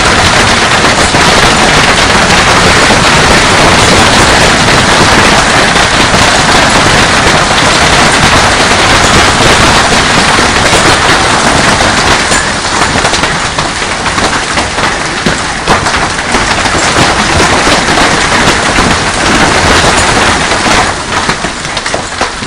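Heavy hail pelting down: a loud, dense, unbroken clatter of hailstones striking hard surfaces, easing slightly in the second half.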